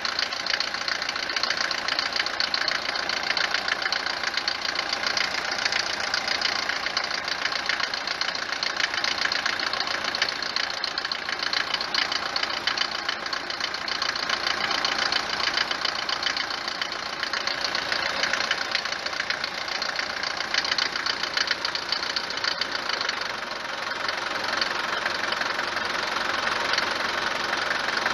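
Mercedes W124 diesel engine idling with a loud, fast, steady clatter: the harsh diesel knock the owner complains of, which the mechanic takes most likely for worn cylinder bores, or else for faulty prechambers, injectors or injection-pump timing.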